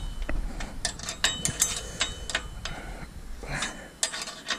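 Hand tools clicking and clinking on the metal of a Claas Lexion 460 combine during repair work, irregular sharp clicks two or three a second that thin out after a couple of seconds.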